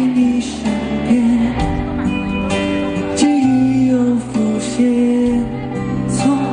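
A male singer singing live into a microphone over band accompaniment, his melody sliding between held notes above a sustained bass.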